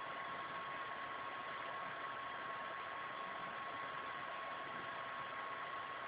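Steady hiss with a thin, constant high whine and no distinct events: background noise of the recording.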